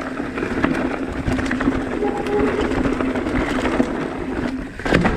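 Mountain bike riding fast down a rocky trail: tyres rolling over dirt and rock under a steady buzz, with scattered clicks and rattles from the bike. A burst of louder knocks and clatter comes near the end.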